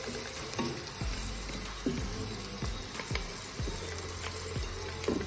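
Onions, curry and spices sizzling steadily in hot oil in a cooking pot. Background music with a steady beat runs underneath.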